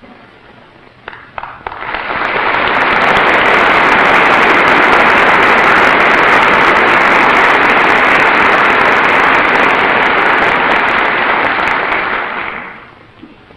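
Large audience of members of Congress applauding: the clapping builds up over about a second, holds steady, and dies away near the end.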